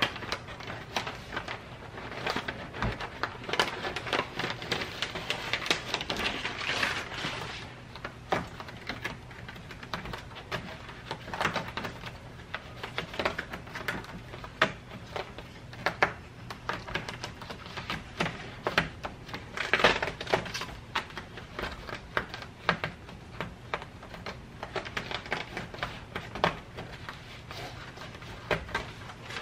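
Hands working a car's partly lowered headliner and foam insulation liner into place: irregular rustling, scraping and light knocks and clicks, with denser crinkling stretches a few seconds in and again about two-thirds of the way through. A faint steady hum runs underneath.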